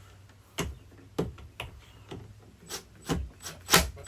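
Irregular knocks and clunks of hands handling tools and parts, about eight in four seconds, the loudest near the end, over a faint steady hum.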